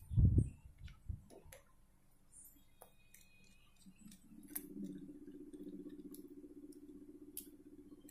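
Small screwdriver clicking and ticking on the screws of an opened Oppo F9 phone as it is unscrewed and handled, with a few dull knocks in the first second. A steady low hum comes in about four seconds in.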